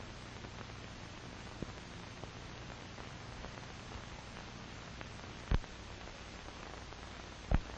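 Steady hiss and low hum of an old film soundtrack, with two sharp pops, one about five and a half seconds in and one near the end.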